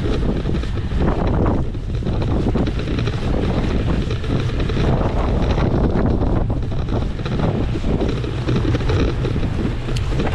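Wind buffeting the microphone of a camera riding on an electric mountain bike, with rumble and many small knocks from the bike moving over rough ground.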